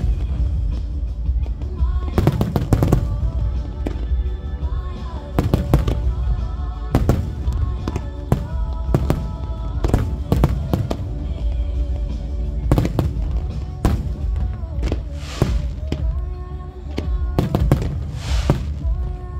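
Fireworks shells bursting in a quick, irregular series of bangs over a loud music soundtrack, with two stretches of hissing from the fireworks about fifteen and eighteen seconds in.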